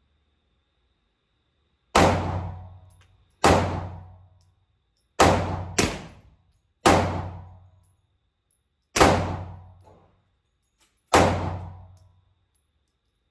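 Seven 9mm pistol shots from a Glock 19X, fired at an uneven pace one to two seconds apart, with a quick pair about five to six seconds in. Each shot echoes for about a second in the enclosed indoor range.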